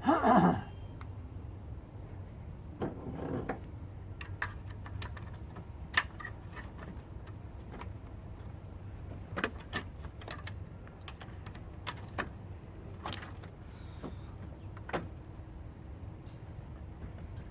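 Scattered metallic clicks and clinks of hand tools working loose the drive chain and motor of an electric Razor scooter, over a steady low hum. A short, loud sound falling in pitch comes right at the start.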